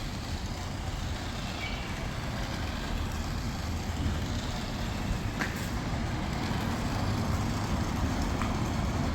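Steady low rumble, slowly growing a little louder, with a brief click about five and a half seconds in.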